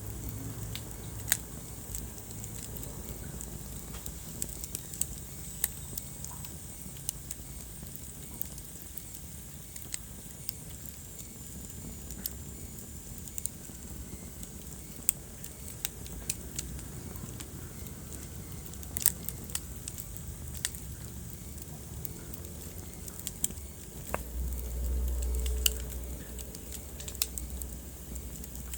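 Wood fire crackling in a fireplace: irregular sharp pops and snaps over a steady low rumble of burning. About 24 seconds in, the low rumble swells louder for a couple of seconds.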